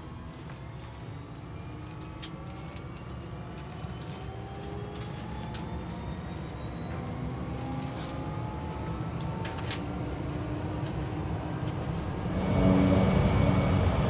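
Cessna 208B Grand Caravan EX's PT6A turboprop heard from inside the cabin while taxiing, its whine slowly rising in pitch and growing louder, with scattered small clicks. Near the end the sound turns abruptly much louder.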